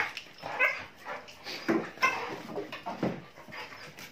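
German Shepherd puppies yipping and whining in play, a string of about five short, high calls.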